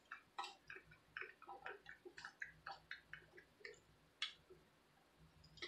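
Faint, irregular crunching and clicking from eating crispy pan-fried instant ramen noodles: several small crackles a second as the dry, crisp noodles are chewed and picked up, with one sharper click about four seconds in.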